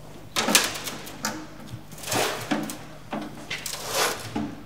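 Car front bumper being handled and set down on a scale: irregular knocks, scrapes and rustling as the large, light panel bumps against the cabinet.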